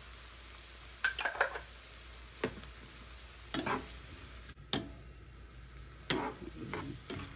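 Sliced onions, green peppers and cherry tomatoes sizzling softly in a nonstick frying pan while a wooden spatula stirs them, its strokes scraping the pan about once a second.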